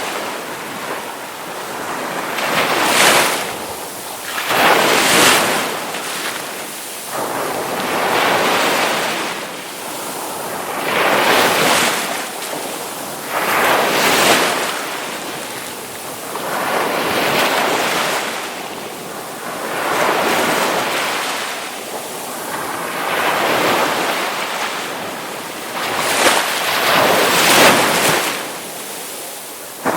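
Ocean waves breaking on a shore, a steady wash of surf swelling and falling about every two to three seconds, with some wind on the microphone.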